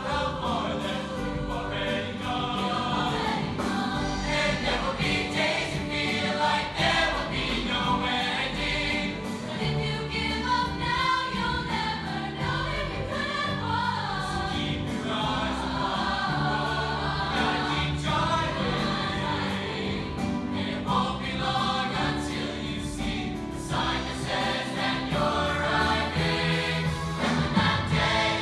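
A large mixed-voice show choir singing together in harmony.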